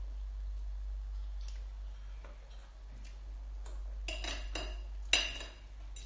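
Faint clicks of eating, then a metal spoon and fork clinking and scraping against a glass bowl about four and five seconds in, with a short ringing clink near five seconds the loudest.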